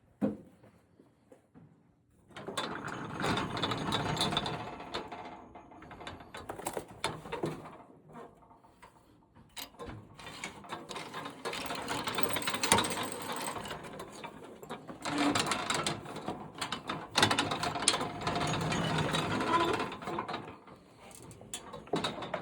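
A small homemade bandsaw mill running in several bursts of a few seconds each, with a busy mechanical rattle and clicking.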